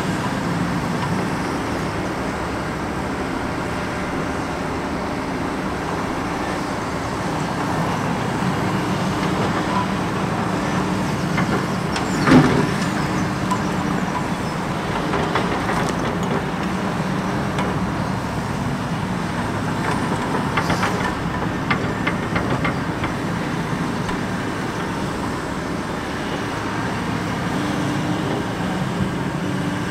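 Takeuchi TB2150R compact excavator's diesel engine running steadily as it digs and dumps soil. A single loud bang comes about twelve seconds in, and stretches of rattling, clattering stone and earth follow.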